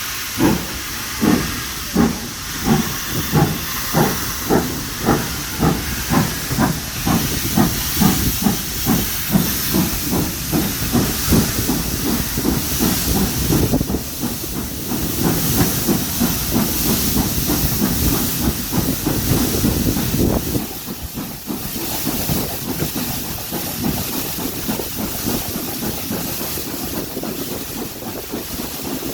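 GWR Castle-class four-cylinder 4-6-0 steam locomotive pulling away, its exhaust beats coming steadily faster as it gathers speed, heard from the train behind it. By about twelve seconds in the beats run together into a continuous rush of steam, which eases a little after about twenty seconds.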